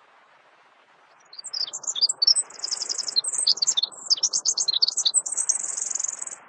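A small songbird singing a fast, high-pitched run of chirps and trills, starting a little over a second in and stopping suddenly near the end, over a faint steady hiss.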